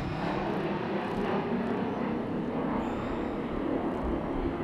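Steady jet noise from a Grumman F-14 Tomcat flying past in an airshow display.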